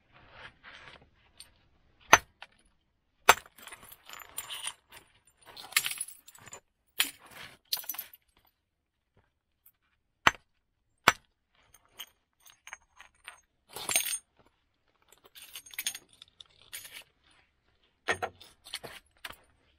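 Hammerstone striking a flint axe blank by direct percussion: a series of sharp cracks as flakes come off, irregularly spaced, with softer scraping and glassy clinks of flint between the blows.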